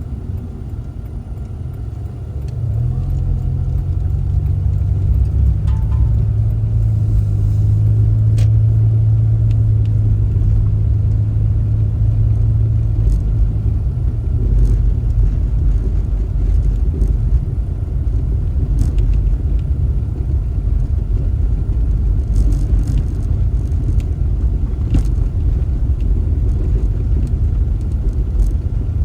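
Car driving: a steady low engine and road rumble. The engine note rises about two and a half seconds in, holds until about thirteen seconds, then eases into a broader rumble.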